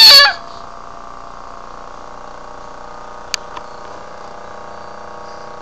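A baby's loud, high-pitched squeal that cuts off just after the start, followed by a steady mechanical hum with one sharp click a little past the middle.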